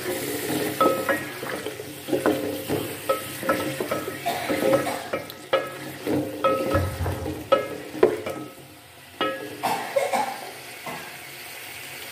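Potato slices frying in hot oil in a metal pot, sizzling, while a wooden spoon stirs them and knocks and scrapes against the pot with short ringing clanks. Near the end the stirring stops and only the sizzle is left.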